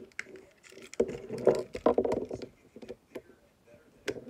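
Handling noise from a plastic toy train engine being unscrewed with a screwdriver: irregular small clicks, taps and scrapes of metal and plastic, with a cluster of them from about a second in.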